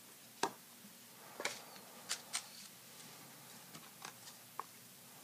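Cardboard trading cards handled in the fingers: short dry clicks and snaps of card edges as one card is slid off a stack and moved behind the others, about half a dozen over a few seconds.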